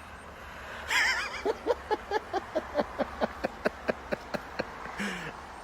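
A person laughing: a high wavering squeal about a second in, then a quick run of 'ha-ha' pulses, about five a second, that fade away.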